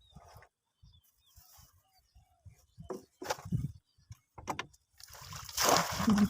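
Water splashing and sloshing, with knocks and rustles, as a bamboo fish trap is handled and pulled up out of the water. The loudest is a long rush of splashing water near the end.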